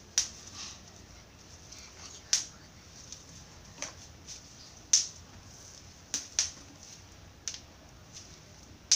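A string of sharp, irregular clicks, about one a second, as a small clip-on lavalier microphone is handled in the fingers: its plastic clip and body clicking and tapping.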